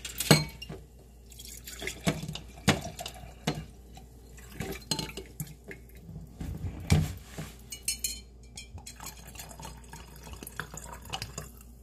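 Cocktail poured from a metal shaker into a stemless wine glass over frozen peach slices, then topped with pink sparkling wine poured from the bottle. Liquid splashing, with scattered clinks and knocks of glass and metal.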